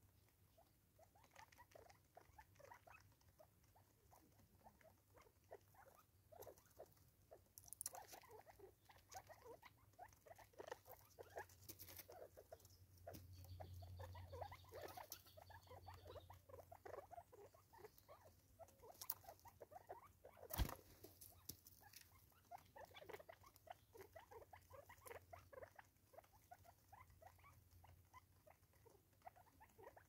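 Francolins pecking seed off a wooden stump: a faint, irregular patter of quick beak taps and scratches, with one sharper knock about two-thirds of the way through.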